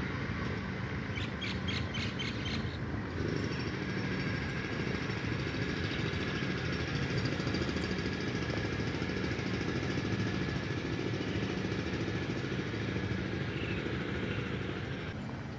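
Steady outdoor background rumble on a walk along a campus path, with a quick run of about six short high chirps or ticks about a second in.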